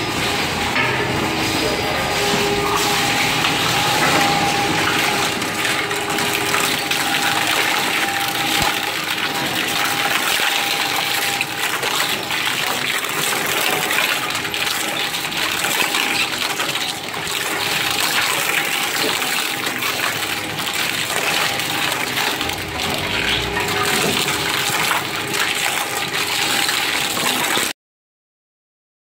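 Twin-shaft circuit board shredder running and crunching scrap circuit boards: a dense, steady crackling clatter with a steady machine whine over it. The sound cuts off abruptly to silence near the end.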